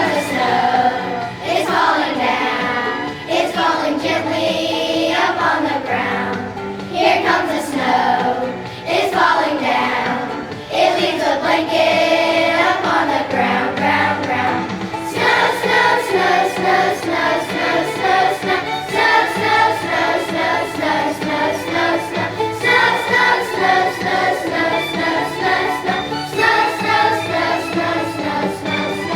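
A student choir singing a holiday song with instrumental accompaniment. The music grows fuller and more evenly rhythmic about halfway through.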